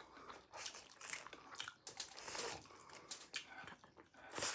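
Chewing and eating chow mein close to the microphone: a run of short, irregular wet mouth clicks and smacks.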